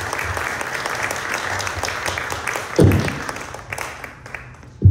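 Audience applause, a dense patter of clapping that dies away over the last second or so. A loud low thump comes a little past halfway, and another right at the end.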